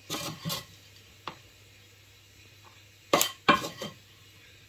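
Wooden spatula scraping and knocking against a pan while scooping out crumbly cooked rice-flour kali, in short bursts: two near the start, a single sharp tap just over a second in, and a louder cluster about three seconds in.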